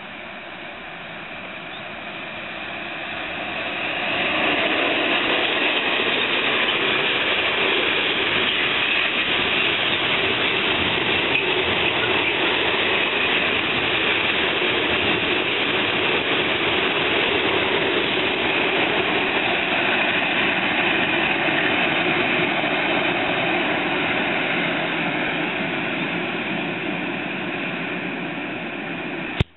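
Freight train hauled by an electric locomotive, with loaded log wagons, rolling past on the rails in a steady rumble of wheel and wagon noise. It builds over the first four seconds and eases slightly near the end.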